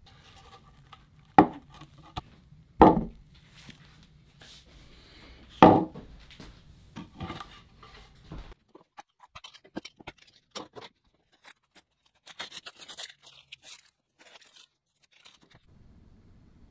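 Workshop handling sounds: three sharp knocks in the first six seconds. After them come short ticks and crackly scrapes as masking tape is peeled off the board around the glued-in foil trackboxes.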